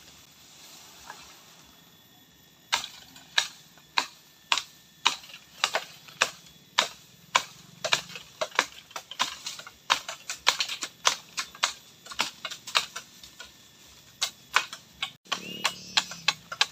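A long run of sharp knocks or strikes starting about three seconds in, coming two to three a second and getting quicker and more irregular toward the end.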